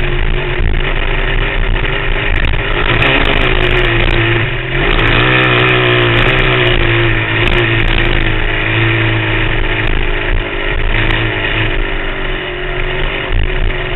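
Engine of an off-road vehicle running under throttle while riding across sand. The revs rise about five seconds in, then hold fairly steady.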